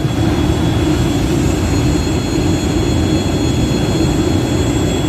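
Storm surf on the Black Sea: big waves breaking offshore and foam washing up the sand beach, a loud, steady rushing noise.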